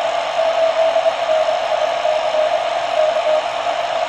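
Weak Morse code (CW) signal on the 30 m amateur band, received on a WBR (Wheatstone Bridge) regenerative receiver: a mid-pitched tone keyed in dots and dashes, barely above a steady hiss of band noise.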